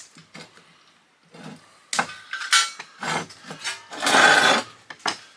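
Hand tools scraping and clinking against a small electric motor's steel core as its copper winding is cut away: a run of short scrapes and knocks, with a longer, louder rasping scrape about four seconds in.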